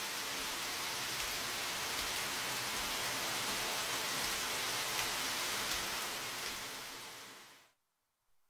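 Steady rain falling, an even hiss, fading away near the end.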